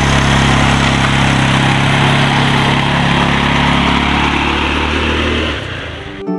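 Quad bike engine running steadily as the quad pulls away, dropping off sharply about five and a half seconds in.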